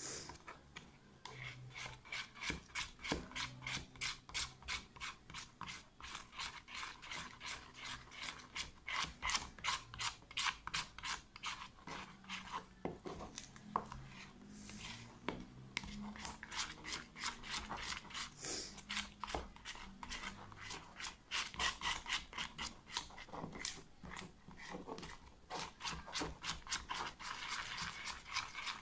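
Spoon scraping round a plastic tub as a slime mixture is stirred fast, in quick rhythmic strokes about three a second.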